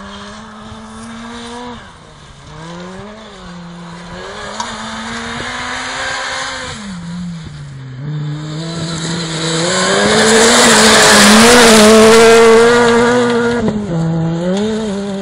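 Rally car engine at full effort on a gravel stage, the revs climbing and dropping several times. It grows loud as the car comes close and passes about ten to thirteen seconds in, with gravel and tyre noise, then eases away near the end.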